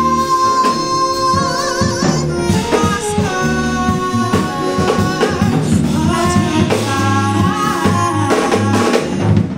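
Live band music with a singer: sustained melodic lines over a drum kit keeping time.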